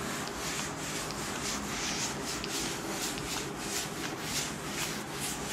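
Cloth wiping chalk off a chalkboard in repeated brisk strokes, a few a second, making a dry rubbing swish.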